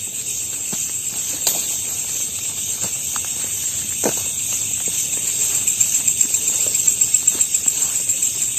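Night insects such as crickets trilling steadily in a high pitch, the trill pulsing more strongly in the second half. Scattered faint ticks and crackles sound underneath.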